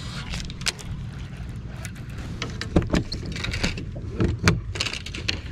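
Irregular sharp knocks and clunks on a fishing boat, over a steady low rumble.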